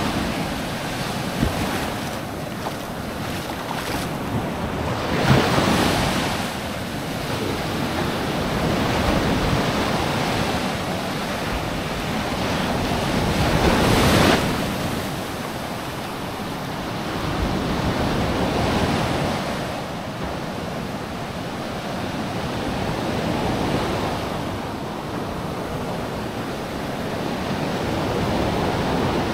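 Sea waves breaking and washing up on a sand beach, surging about every four to five seconds, loudest about halfway through, with wind on the microphone.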